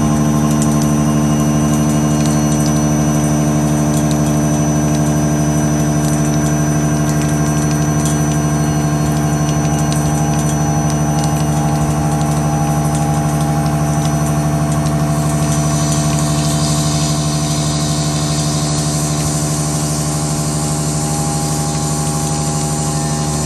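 CNC machine running a C-axis milling job: a steady motor and spindle hum made of several held tones, with a thin high whine over it. About two-thirds of the way through, a hiss rises in and carries on alongside the hum.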